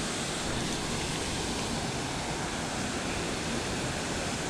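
Steady, even rushing of running water, with nothing else standing out.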